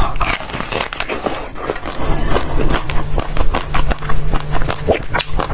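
Frozen basil-seed ice being bitten and chewed, with a dense, irregular run of sharp crunches and cracks.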